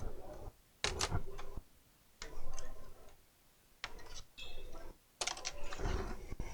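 Clicks and rattles of a laptop's plastic case and parts being handled and worked on during disassembly, in about six short bursts.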